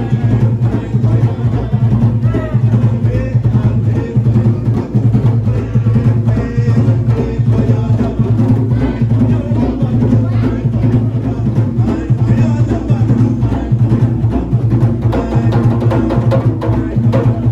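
Loud music with a fast, driving drum beat and a heavy pulsing bass.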